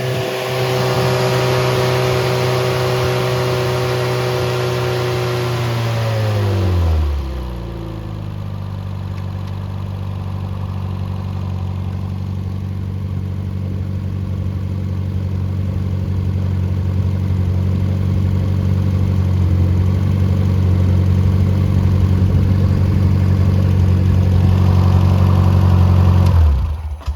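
Freshly rebuilt MG Midget 1500 four-cylinder engine running steadily at raised speed, then dropping back to idle about seven seconds in. It idles steadily for about twenty seconds and is shut off, stopping abruptly near the end.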